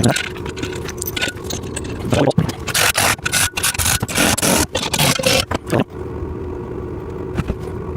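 Steel exercise-machine frame parts and bolt hardware being handled during assembly: irregular clanks, clicks and scrapes of metal on metal, dying down to a quieter stretch about six seconds in.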